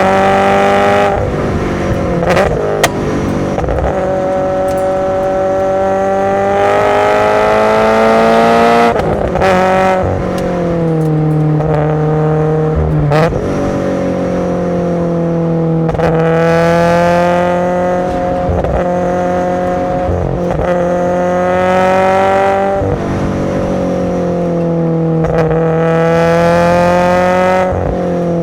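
Subaru BRZ's FA20 flat-four breathing through SARD individual throttle bodies, driven hard: the engine note climbs in pitch in each gear and drops back at each gear change, over and over.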